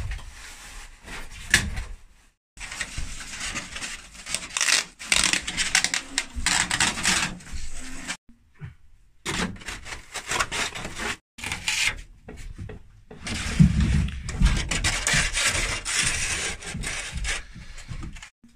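Rubbing and scraping of plastic rafter vent baffles being pressed and fitted between wooden roof rafters. It comes in runs of scraping noise that cut in and out abruptly several times, with a couple of sharper knocks.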